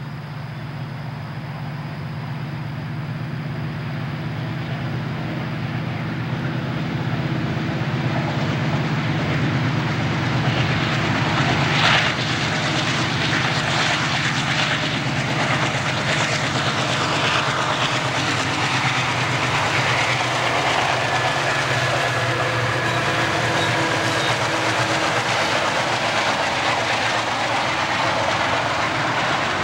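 Alco-built diesel locomotives working under power as they approach, their engines' low drone growing steadily louder. From about twelve seconds in, the locomotives and cars pass close with a loud rumble of wheels on rail.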